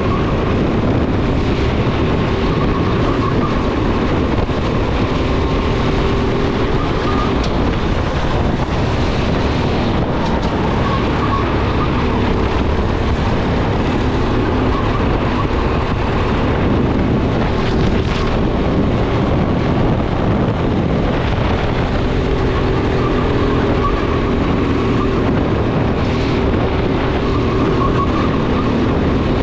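Racing go-kart's motor heard onboard through a lap, its pitch rising and falling as the kart speeds up down the straights and slows for corners, with a steady rush of noise over it.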